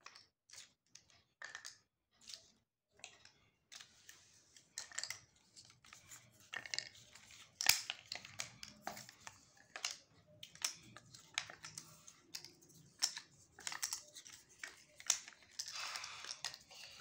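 Cardboard jigsaw puzzle pieces being taken out and handled: faint, irregular light clicks, taps and rustles, with a longer papery rustle near the end.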